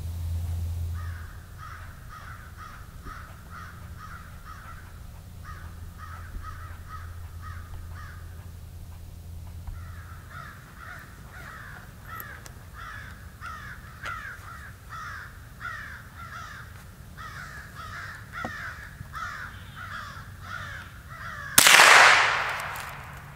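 Gray squirrels barking in rapid, repeated bouts of short calls, about three a second, their alarm call. Near the end a single loud, sharp shot from a Marlin Model 60 .22 LR rifle.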